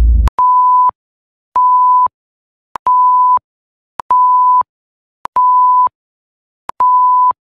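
Countdown sound effect: six steady electronic beeps, all at the same pitch, each about half a second long and roughly one every one and a quarter seconds, each edged by a short click. A brief low rumble sounds at the very start.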